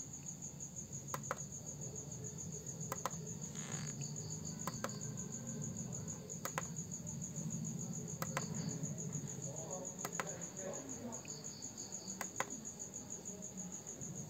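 Crickets chirping in a steady high trill, with faint short clicks about every two seconds.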